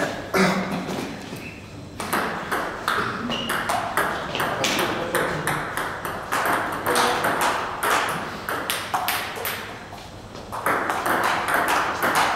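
Table tennis ball clicking off the table and the rubber bats in a rally: sharp, irregular ticks, often in quick succession. A louder, noisier background rises near the end.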